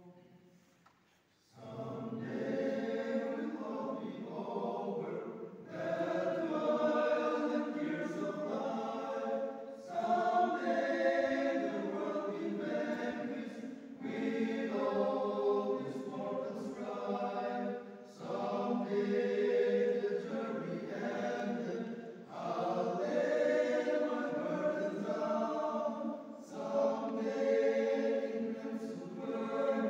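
Men's choir singing in harmony, the song coming in phrases of about four seconds with short breaks for breath between them. The singing starts about a second and a half in, after a brief pause.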